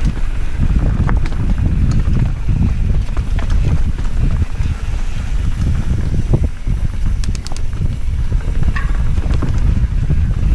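Wind buffeting the microphone of a helmet-mounted camera on a mountain bike descending a dirt trail, with steady rumble from the tyres and frame and scattered sharp clicks and rattles from the bike, a quick cluster of them about seven seconds in.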